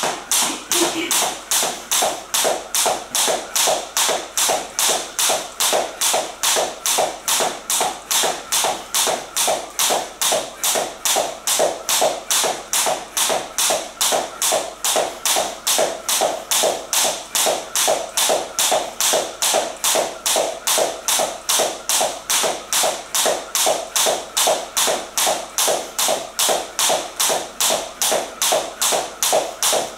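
Jump rope skipping on a wooden floor: an even run of sharp taps, about two and a half a second, as the cable rope strikes the floor and the trainers land with each turn.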